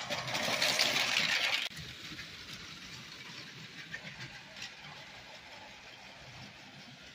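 Motorised Lego train running on plastic track: a loud whir and rattle as it passes close for the first couple of seconds, dropping off suddenly, then a quieter steady running noise with a few light clicks as it goes around a curve.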